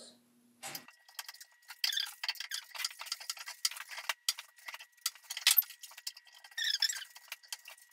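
Rapid, irregular clicking and scraping of plastic PVC fittings being screwed together: a Teflon-taped threaded piece turned into a 1-inch to 3/4-inch PVC elbow clamped in a metal bench vise. One louder click comes about five and a half seconds in.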